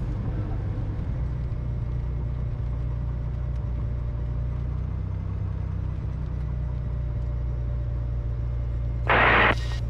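Cessna T210 Turbo Centurion's turbocharged six-cylinder engine and propeller running at low taxi power, a steady low drone heard inside the cabin. A short hiss comes in briefly about nine seconds in.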